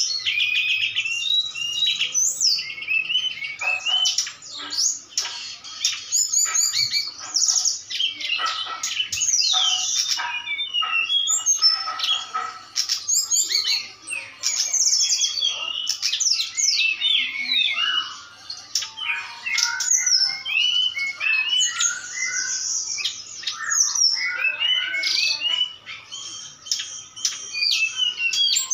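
Two songbirds singing against each other: a caged brown-chested jungle flycatcher answering a tledekan gunung in a dense, overlapping stream of rapid chirps, trills and sliding whistled notes, with a few short pauses.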